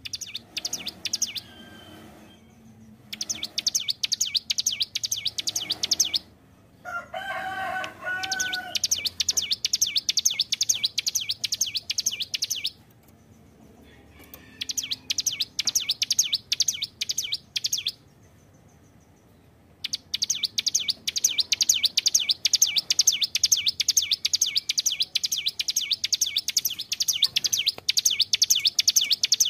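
Ciblek gunung singing in full voice: fast, rattling trills of high notes, in bouts of a few seconds with short pauses between, the last bout running on for about ten seconds. About seven seconds in, a lower, tuneful call sounds for a couple of seconds.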